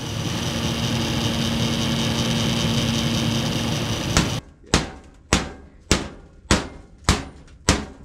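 Gas furnace burners firing: a steady rush of burning gas with a faint low hum. About four seconds in this cuts off, and a long-handled hammer strikes the old furnace's metal venting six times, a little under two sharp blows a second.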